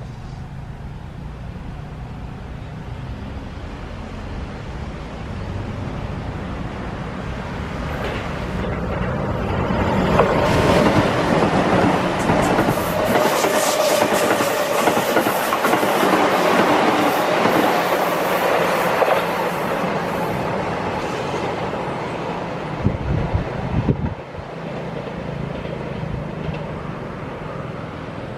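Keihan 8000 series electric train passing close by. It builds over about ten seconds to a loud rumble with wheels clattering over the rail joints, then fades away. A few low thumps come near the end.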